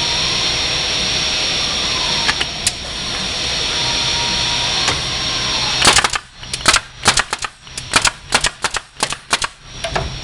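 Hive body assembly machine running a cycle. A steady machine hiss with a few isolated clicks, then from about six seconds a rapid run of sharp shots, about five a second, as its fastening tools drive fasteners into the box joints.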